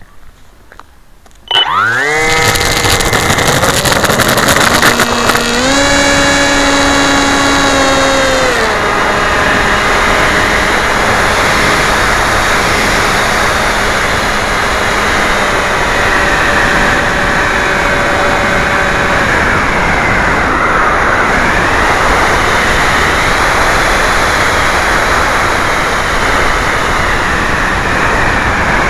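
Electric brushless motor and propeller of a model flying wing, heard from its onboard camera. The motor spools up with a sharply rising whine about a second and a half in and holds high, with a step up in pitch for a few seconds. It then eases back under a steady rush of wind noise, and its whine drifts faintly up and down later on.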